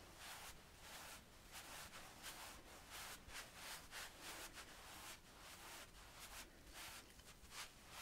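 Two wide bristle paint brushes swept over the bare skin of a neck, a faint swishing hiss with each stroke, about two strokes a second.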